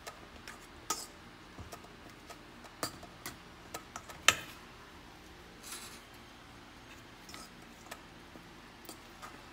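Irregular light clinks and taps on a stainless steel mixing bowl as cornbread is crumbled by hand in it, the sharpest about four seconds in.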